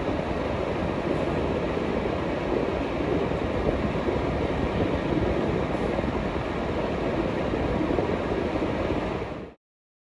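Steady rushing noise with a low rumble inside a car cabin, typical of an idling car with its heater fan blowing. It cuts off suddenly near the end.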